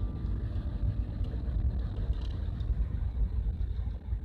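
Low, uneven rumble of a van on the move, heard from inside the cab: engine, tyre and wind noise.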